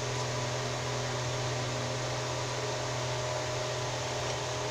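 A steady low mechanical hum, like a fan or small motor running.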